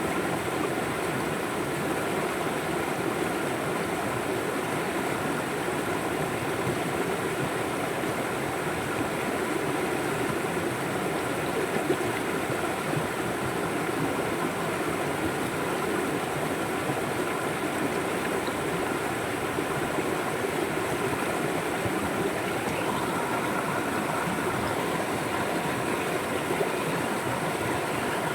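River water flowing over and around rocks: a steady, even rushing.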